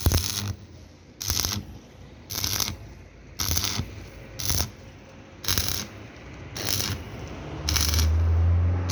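Welding arc crackling in short, evenly spaced bursts, about one a second, over a low electrical hum that swells and holds steady near the end.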